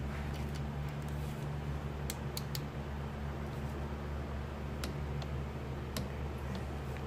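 Steady low hum with a handful of sharp metallic clicks from hand tools being worked on a motorcycle engine: three quick clicks about two seconds in, and a few more scattered later.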